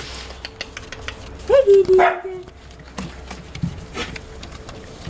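Dachshund puppies whining and yelping. A loud high cry about a second and a half in rises and then holds one pitch briefly, with a second cry on top of it, and short clicks and rustles of the pups moving on newspaper throughout.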